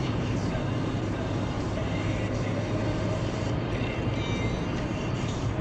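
Car driving along, a steady engine and road-tyre noise with a low hum.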